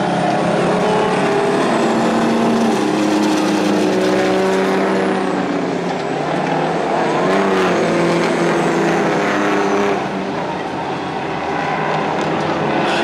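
Several big-rig racing trucks' engines running hard on a dirt oval, their pitch rising and falling as they throttle through the turns. The sound dips briefly about ten seconds in.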